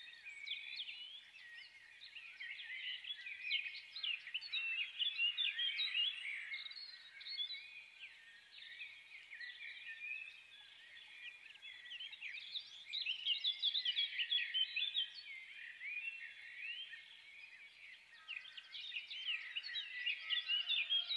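Many small birds chirping and twittering together in a dense, continuous chatter of short high calls. Near the end a steady pitched tone enters underneath.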